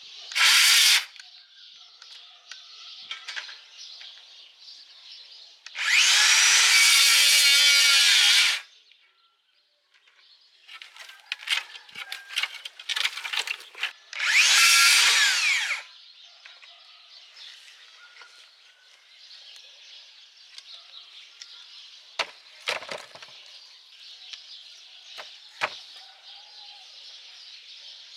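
DeWalt DCS578 60V FlexVolt cordless circular saw cutting through dry branches in three runs: a brief burst, a cut of about three seconds and a cut of about a second and a half, each ending abruptly. Sharp clicks and cracks come between the cuts, and a couple of knocks come near the end.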